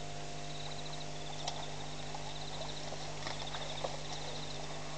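African elephants' feet on dry twigs and gravel: a few sharp cracks and crunches, one about a second and a half in and several more around three to four seconds in. Under them runs a steady electrical hum, with a high pulsed chirping repeating in the background.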